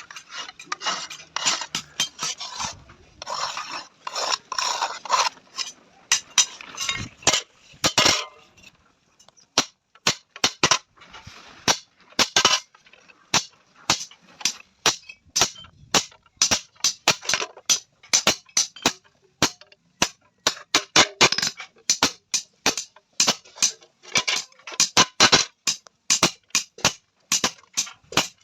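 Hand hammer striking an iron sheet being forged into a tawa, the griddle plate ringing sharply at each blow. For the first several seconds the strikes come thick with a harsh noise between them; from about nine seconds in they are separate sharp blows, two or three a second.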